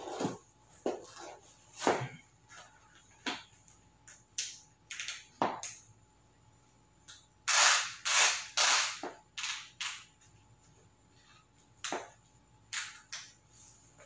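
Cycling shoes being put on and fastened by hand: scattered clicks, taps and scuffs, with a run of three loud rasps about halfway through as the straps are pulled tight.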